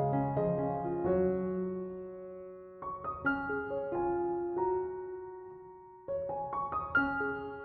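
Soft background piano music playing gentle rising phrases of notes that ring and fade, with a new phrase beginning about three seconds in and another about six seconds in.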